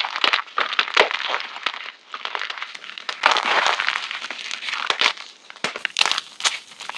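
Fresh blocks of gym chalk being crushed and crumbled, a run of crisp crunches and crackles with a brief lull about two seconds in, given an added echo effect.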